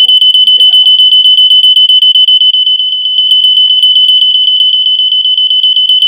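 Gentex 710CC photoelectric smoke detector's piezo horn sounding a loud, piercing, steady high-pitched tone with a fast flutter while its test button is held down. The alarm sounds on test, a sign that the unit still works.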